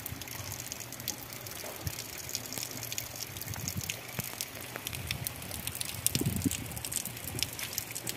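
Rain falling, with many separate drops ticking close to the microphone. Low rumbling gusts of wind on the microphone come and go, the strongest about six seconds in.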